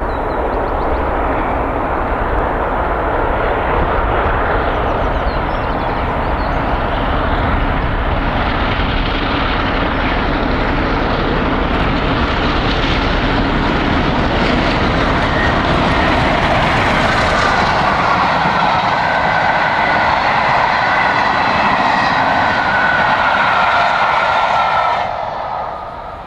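Three-cylinder A1 Pacific steam locomotive No. 60163 Tornado passing at speed with its express train: a loud, continuous rush of exhaust and rolling wheels, with a few thin high tones in the second half. The sound falls away sharply near the end.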